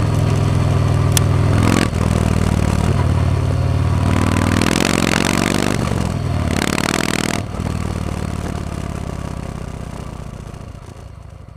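Yamaha MT-01's big air-cooled V-twin running under way, with bursts of wind noise on the microphone. The sound dips briefly about two seconds in, then fades away steadily over the second half.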